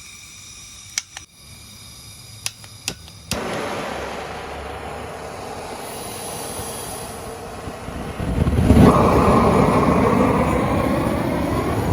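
A homemade metal-melting furnace being lit: a few sharp clicks, then a steady hiss starts about three seconds in, and about eight seconds in the burner catches and burns loudly and steadily.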